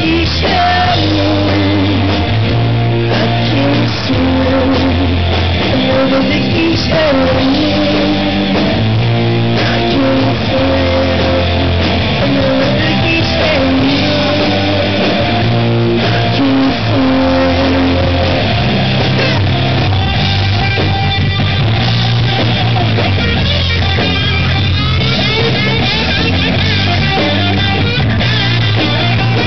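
Live rock band playing loud: a male singer singing over electric guitars and a drum kit, with a low bass line underneath.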